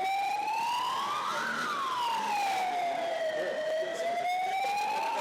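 Emergency vehicle siren in a slow wail: its pitch climbs to a peak about a second and a half in, falls for about two seconds, then climbs again near the end.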